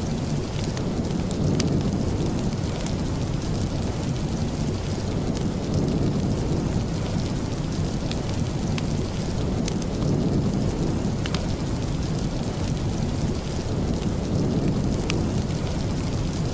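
Steady rain with a deep, even rumble, and scattered sharp pops of a crackling wood fire.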